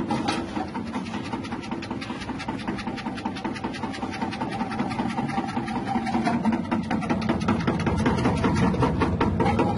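Electric chip-slicing machine's motor running steadily, with a rapid, even ticking of its mechanism, growing a little louder in the second half.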